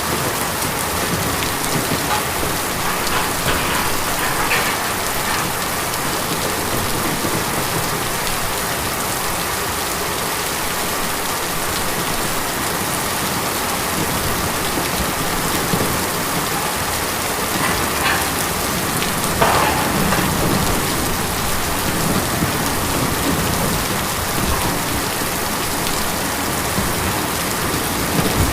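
Steady heavy rain drumming on a tin roof, a dense continuous patter with a few louder splashes here and there.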